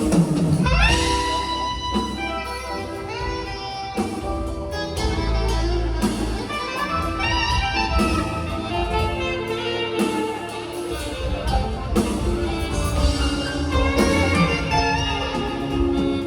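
Two saxophones playing a slow duet melody over a live band, with sustained held notes and a steady bass underneath.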